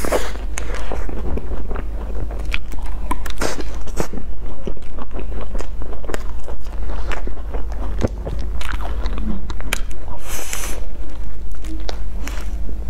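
Close-miked biting and chewing of crumb-topped cream puffs, with irregular crisp crunches from the crumbly topping.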